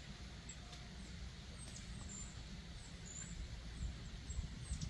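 Small birds giving short, very high, thin chirps, scattered about a dozen times, over a steady low outdoor rumble.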